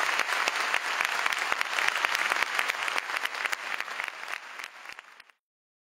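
Audience applauding. The clapping fades over the last second and then cuts off abruptly.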